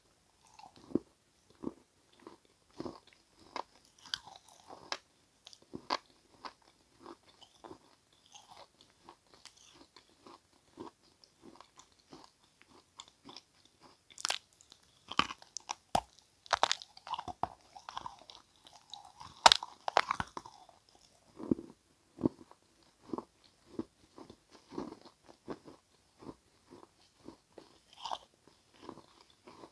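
A person biting and chewing crunchy pieces of edible chalk and clay, a steady series of sharp crunches with a denser, louder run of crunching about halfway through.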